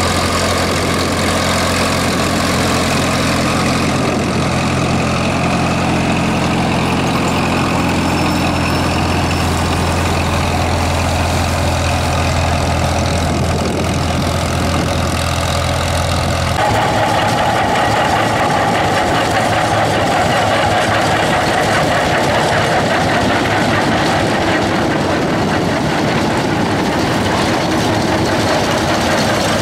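Minneapolis-Moline tractor engine running steadily under load while pulling a plow, a strong low hum. About halfway through it cuts abruptly to another old tractor plowing, with much less low hum and more hiss.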